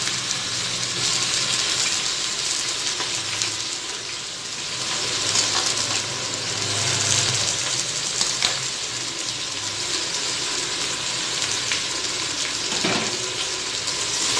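Sliced onions frying in hot ghee and oil in an open pressure cooker: a steady sizzle with a couple of sharp clicks, and a spatula stirring them near the end.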